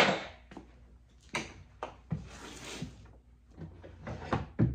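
Wooden knocks and clunks as axes are handled in and against a plywood shipping crate, with a sharp knock at the start and smaller clunks later. A brief rustling noise about two seconds in.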